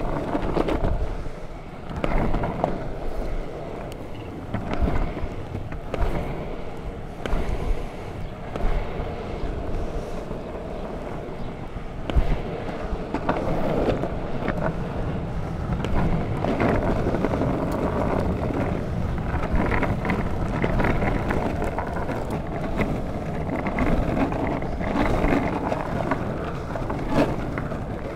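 Longboard wheels rolling over asphalt: a steady rumble with scattered sharp knocks, the loudest about twelve seconds in, and wind on the microphone.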